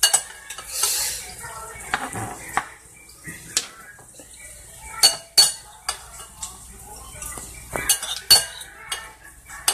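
Metal kitchen utensils clinking, knocking and scraping against a pot and dish as cooked chicken is lifted out and handled. The clanks are irregular, with the sharpest about five seconds in and again near the end.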